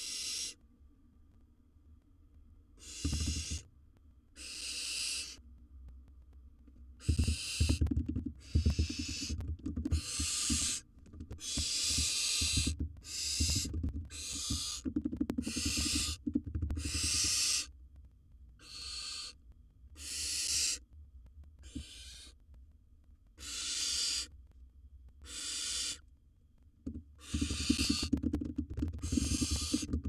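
Barn owl hissing calls: a long series of harsh, breathy hisses, each under a second, about one a second from a few seconds in, with low thumps and scuffling underneath.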